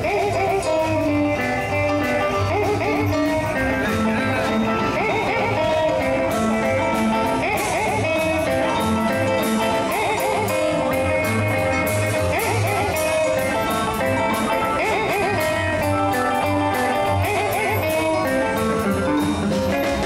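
Live rock and roll band playing: electric guitar on wavering, bent notes over drums, bass and piano, with a steady beat.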